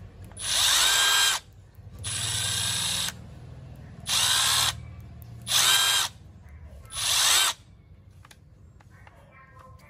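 Milwaukee M12 FUEL 2553 brushless impact driver run with no load in five short trigger pulls. Each pull spins up quickly to a steady whine and stops, and the second one is quieter.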